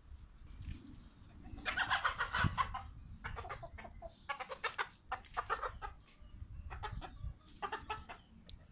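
Hens clucking in several bouts of quick, repeated clucks, loudest about two seconds in.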